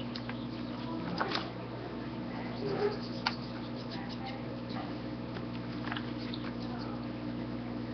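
A steady low hum with scattered light clicks and taps over it.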